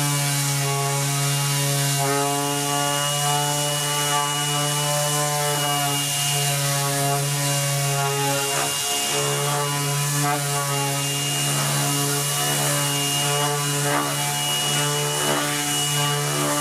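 Bosch GEX 18V-125 brushless cordless random orbit sander running steadily while sanding pre-primed timber with a 220-grit Diablo SandNet mesh pad: a constant hum with a high whine and the hiss of the abrasive on the wood. The low hum dips briefly about halfway through.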